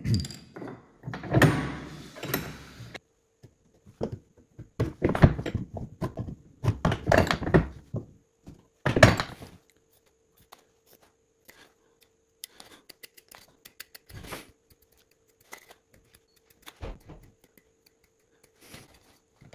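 Wooden workpieces and marking tools knocked, set down and slid on a wooden workbench through the first half. After that come faint, scattered scratches of a pencil marking lines on the timber.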